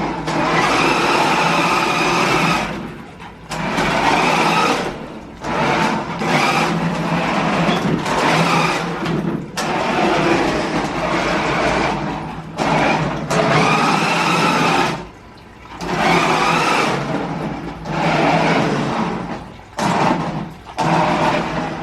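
Toy-grade RC drift car's electric motor and gears whirring in repeated bursts of one to three seconds as it is throttled on and off, with short pauses between runs.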